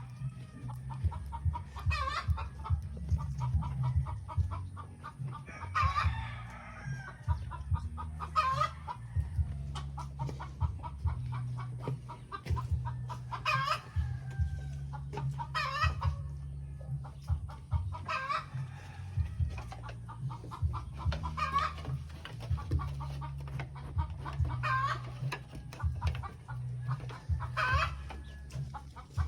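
Chickens clucking in a fast run of short notes, with a louder short call breaking in about every two to three seconds, over a steady low hum.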